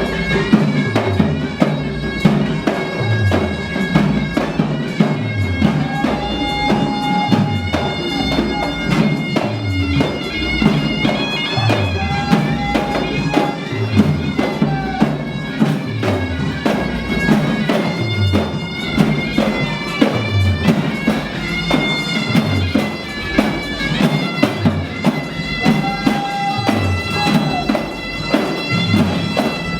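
Traditional folk band music: a reedy, bagpipe-like wind instrument plays long held melody notes over a steady, regular bass drum beat.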